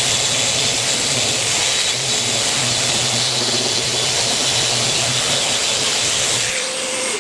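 Electric sander running steadily on a glued-up birch plywood panel, evening up the glue joint, with a faint high whine over its motor hum; it switches off near the end.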